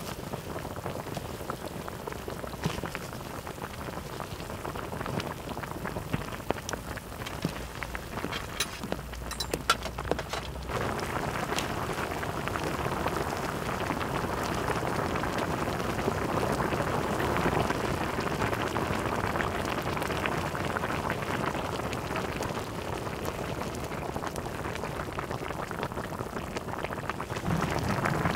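Spicy seafood ramyeon broth boiling hard in a wide pan, a steady bubbling and spattering like rain, with a few light clicks about nine seconds in. The boil grows louder about eleven seconds in.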